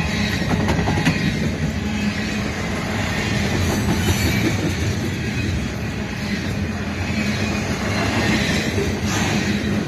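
Double-stack container well cars of a freight train rolling past close by: a steady rumble of steel wheels on rail, with a few sharp clacks and clanks.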